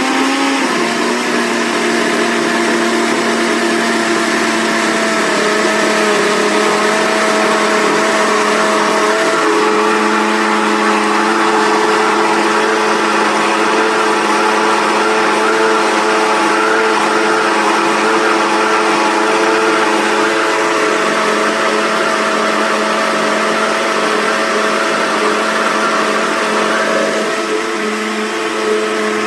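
Mondial Premium L51 800 W blender motor running continuously under load as it blends carrot cake batter. It makes a steady hum and whir, and its pitch shifts slightly a few times as the load changes, once near the end.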